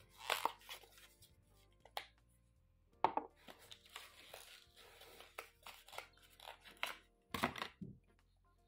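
Cardboard gift-box packaging being handled and opened by hand: a string of irregular rustles, scrapes and taps as a small roller bottle is taken out, with faint music in the background.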